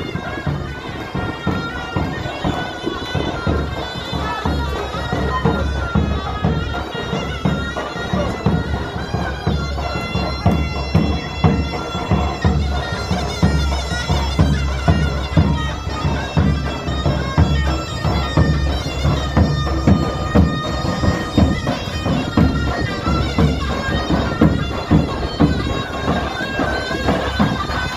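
Zurna and davul playing loud procession music: a shrill reed pipe carries the tune over a steady pounding drum beat.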